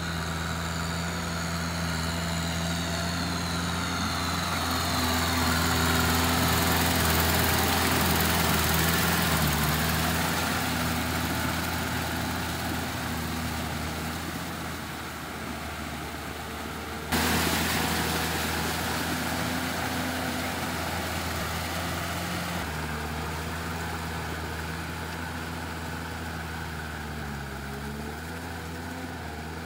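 Farm tractor's diesel engine running steadily under work, with the rotary tiller churning through wet paddy mud. The sound changes abruptly twice, at cuts between shots, and near the end the engine's pitch dips briefly and recovers.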